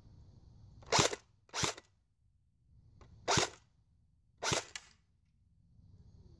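Steyr AUG A2 airsoft electric gun with a V3 metal gearbox firing four single shots, spaced unevenly, each a short sharp crack of the gearbox cycling.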